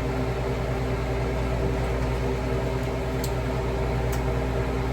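Steady mechanical hum of a running kitchen appliance, with a faint tick or two partway through.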